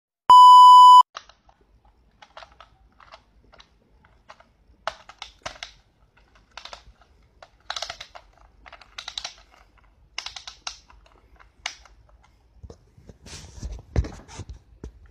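A steady test-tone beep lasting under a second, the loudest sound, over a colour-bar transition card. Then scattered light clicks and taps from hands handling a small plastic doll head on a tiled floor, with a few heavier knocks near the end.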